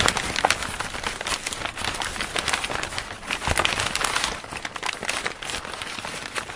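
Dense crinkling, crackling noise made of many small irregular clicks, a little quieter over the last couple of seconds.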